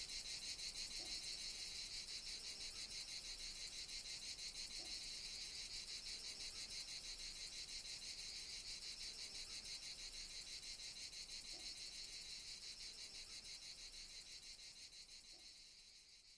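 Faint, steady insect chirping, a fast pulsing high trill, fading out near the end.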